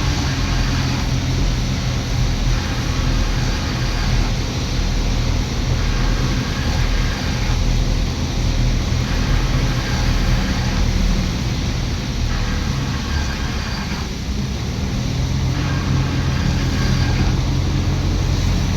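Motor vehicle engine running at a steady speed, a continuous low hum with road noise.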